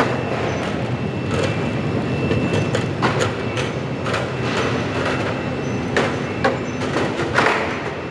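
Lemon sorting and washing line running: a steady mechanical rumble with frequent irregular knocks and clacks and a faint steady high whine.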